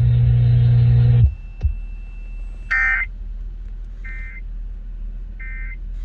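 A steady low buzzing hum from the weather radio's speaker cuts off about a second in, followed by a click and then three short electronic beeps about 1.3 seconds apart.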